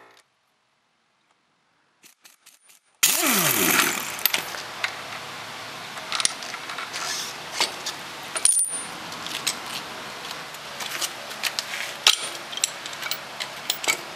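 Steel hand tools, sockets and a spring compressor clinking and clattering against a coil spring and strut on a concrete floor, in many short, sharp metallic clinks. It starts suddenly about three seconds in after a brief silence, loudest at the start.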